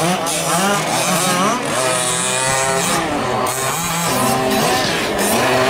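Small two-stroke gasoline engines of 1/5-scale RC trucks racing, their pitch rising and falling as the trucks accelerate and back off through the corners.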